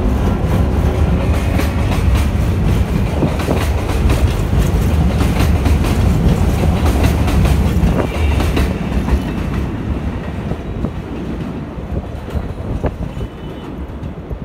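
R143 subway train pulling out along the platform, its wheels clacking over the rail joints under a heavy rumble. The sound fades from about nine seconds in as the last cars go by.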